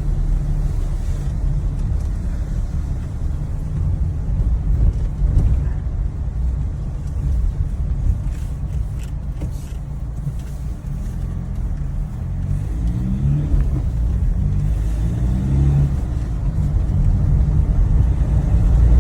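Ford Transit van driving, with a steady low rumble of engine and road. Past the middle the engine rises in pitch and drops back several times as it goes up through the gears, the newly repaired clutch working normally.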